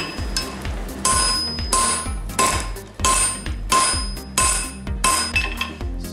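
Hand hammer striking glowing steel tong jaws on an anvil in a steady rhythm, about one blow every two-thirds of a second, each blow ringing brightly. The blows drive the hot jaws down over a half-inch round bar to forge a crosswise groove into them.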